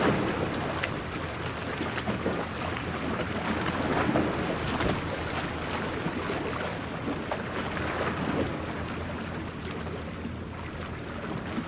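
Wind and small waves washing on the shore, over a steady low engine hum from a ship on the water.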